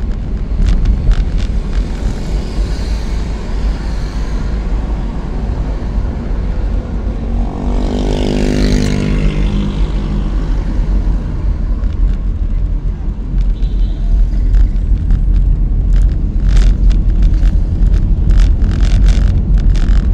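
An old car being driven, heard from inside the cabin: a steady low rumble of engine and road noise. About eight seconds in, another vehicle's engine passes close by with a falling pitch. Near the end comes a run of sharp clicks and knocks.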